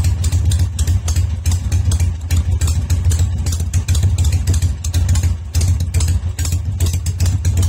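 1970 Harley-Davidson XLH Ironhead Sportster's V-twin engine idling steadily.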